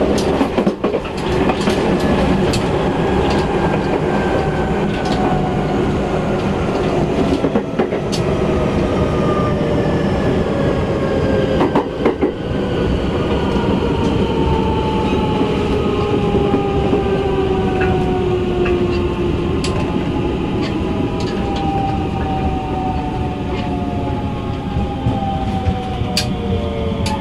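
Mitsubishi IGBT VVVF inverter and traction motors of a JR West 223 series 2000-subseries electric train, the motor whine made of several tones that fall slowly and steadily in pitch as the train slows. Under it is a steady rail rumble, with a few sharp clicks from the wheels.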